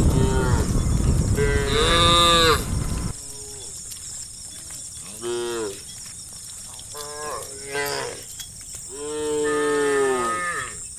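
Cattle mooing, about five calls one after another, several of them long with the pitch rising and then falling. A loud low rushing noise lies under the first three seconds and cuts off suddenly.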